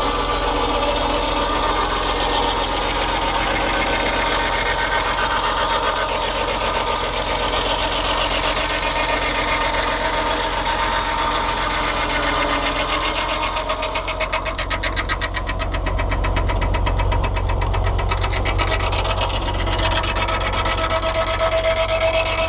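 Fordson Power Major tractor's four-cylinder diesel engine running steadily while driving the rack sawmill through its PTO. About two-thirds of the way through the sound turns to a fast, even pulsing with a deeper rumble.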